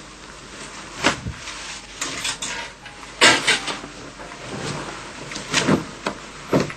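Several separate short swishes, rustles and knocks as clothes are pulled off and tossed aside.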